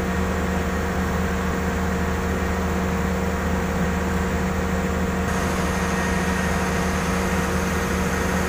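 Komatsu PC200-6 excavator's diesel engine idling steadily while it warms up, running on freshly serviced injector nozzles.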